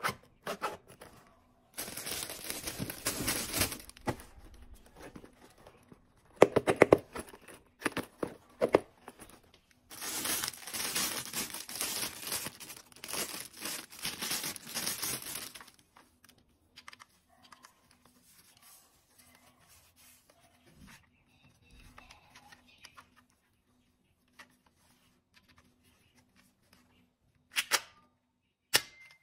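Thin plastic packaging bag crinkling and tearing in three long bursts over the first half as a toy pistol is unwrapped, then two short sharp clicks near the end.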